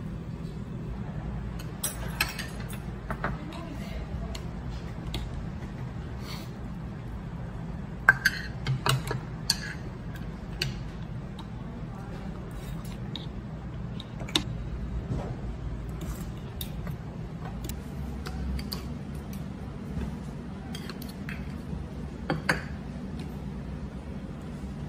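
Metal spoon and chopsticks clinking against an earthenware soup pot and dishes while eating. Scattered clinks, the loudest cluster about eight seconds in, over a steady low hum.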